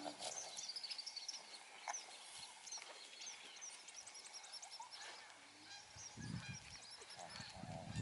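Many short, high chirping calls in quick succession, with two brief low hums, one at the start and one a little past halfway, of the kind alpacas make. Some low rumbling comes in near the end.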